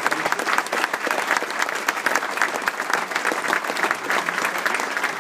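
A roomful of people applauding, a dense, steady clapping that keeps going without a break.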